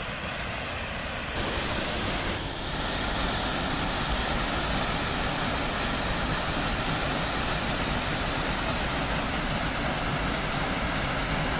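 Moose Falls, a waterfall on Crawfish Creek, rushing steadily. It grows louder about a second and a half in, as the falls come closer.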